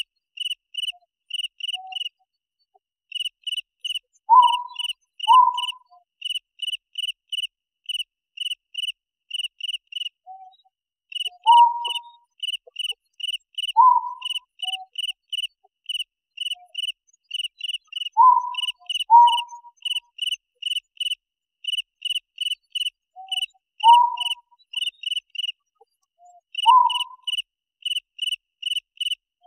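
Night insects, crickets, chirping in a steady run of short high pulses about three a second, with brief pauses. Every few seconds a lower, short call cuts in, often twice in a row, and these are the loudest sounds.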